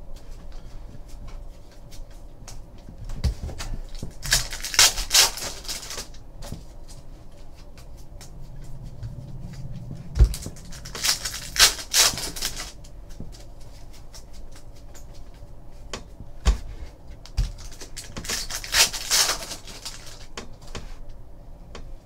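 Foil trading-card pack wrapper crinkling and tearing in three bursts, about four seconds in, around ten to twelve seconds, and near the end, with small clicks of cards being flipped and slid against each other in between.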